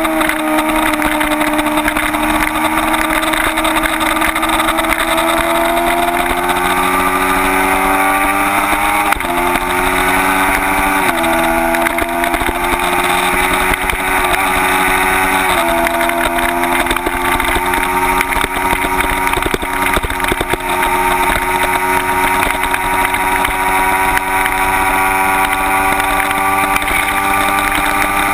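Kawasaki Ninja 250's parallel-twin engine running hard at speed, with heavy wind rush. The engine note drops at first, steps abruptly several times between about 9 and 16 seconds in as gears change, then climbs slowly under acceleration.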